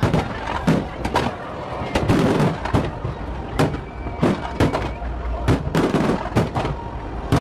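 Aerial fireworks shells bursting overhead: a quick, uneven run of bangs, about two a second, over a steady low rumble.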